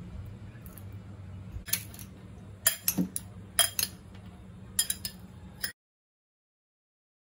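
Metal spoon clinking against a glass bowl while a chickpea salad is stirred: a handful of sharp clinks, some in quick pairs, over a steady low hum. The sound cuts off abruptly near the end.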